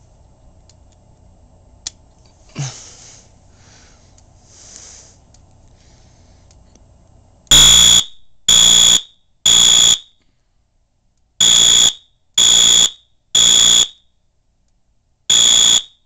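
Faint clicks and rustles, then a Wheelock MT multitone fire alarm horn sounding in the temporal-three (code three) evacuation pattern starting about halfway in. It gives three short, loud, steady-toned blasts about a second apart, a longer pause, three more blasts, another pause, and the first blast of a further group near the end.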